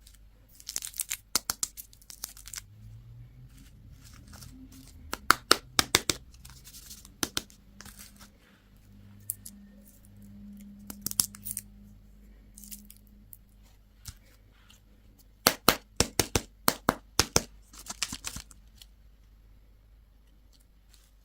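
Candy wrapper being torn open and crinkled, in clusters of sharp crackles: one near the start, one around five to six seconds in, and another from about fifteen to eighteen seconds in, with quieter stretches between.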